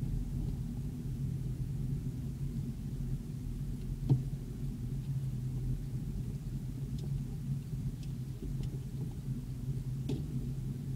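Vehicle engine and tyres on snow, heard from inside the cabin as a steady low rumble while driving. There is one sharp knock about four seconds in and a few faint ticks later.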